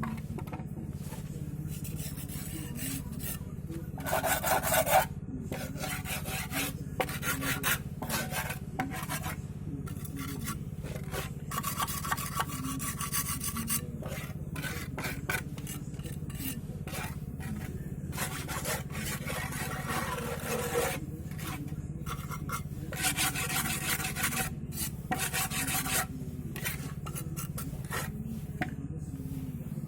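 Irregular bouts of rough scraping and rasping strokes as the pot is shaped by hand, over a steady low hum.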